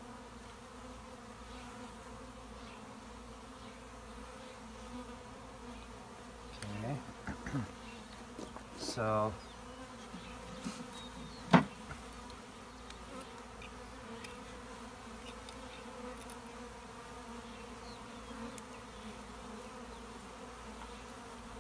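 Honeybees buzzing steadily in a steady hum around an open top bar hive as a new package colony is installed. A few short handling knocks come in the middle, then one sharp click a little over halfway through, the loudest sound.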